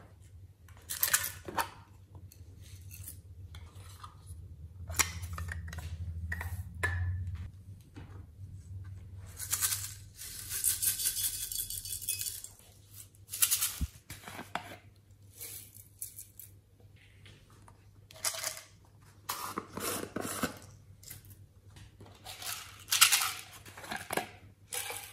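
Glitter and sequins rattling in small plastic shaker bottles and scattering onto slime in a glass tray, with a long stretch of shaking about halfway through. Clicks and knocks of plastic bottles and slime containers being picked up, set down and opened run through it, the sharpest near the end.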